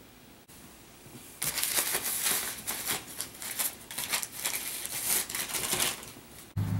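Paper crinkling and rustling as an Italian greyhound puppy bites, shakes and drags it, a quick irregular run of crackles starting about a second and a half in. Near the end it cuts off and a low steady hum begins.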